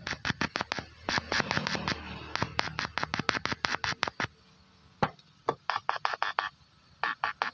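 Loudspeaker driven by a homemade MOSFET power amplifier, playing rapid trains of sharp clicking pulses at about ten a second. They stop about 4 s in, with one lone click, and start again in shorter bursts.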